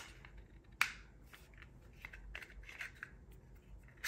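Glock 43X pistol being reassembled by hand: the steel slide rubbing and clicking as it is worked back onto the polymer frame's rails, in faint scattered clicks and short scrapes, with one sharper click about a second in.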